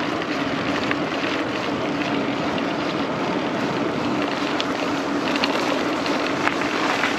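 Gravel bike tyres, Pirelli Cinturato, rolling steadily over a loose gravel lane: an even rolling hiss with a faint steady hum and a few small ticks of stones under the wheels.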